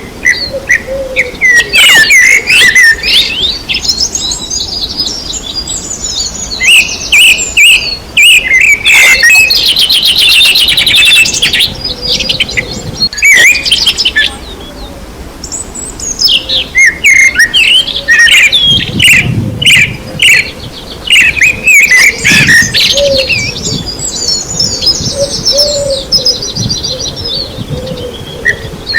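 Several songbirds chirping and singing over one another, with a fast high trill about ten seconds in and another near the end.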